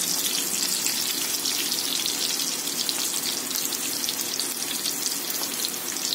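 Whole bitter gourds (karela) frying in hot oil in a wok: a steady sizzle full of fine crackles.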